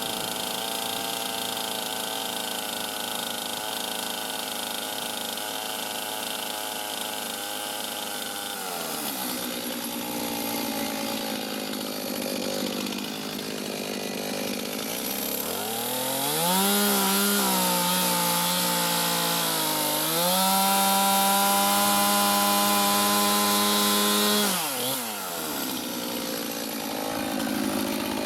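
Chainsaw cutting a log along the scribe line. The engine runs steadily, drops back about nine seconds in, then revs up to full speed around sixteen seconds. It eases briefly, runs flat out again, and falls back near the end.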